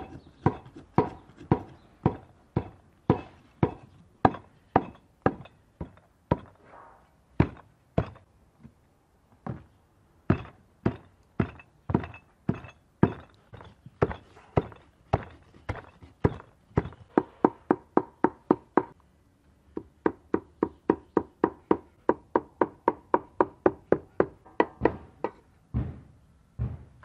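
Steel cleaver chopping raw meat and fat on a thick wooden tree-trunk chopping block, hand-mincing it for lula kebab: a steady run of knocks, about two a second at first and nearer three a second later, with a short pause about two thirds of the way through.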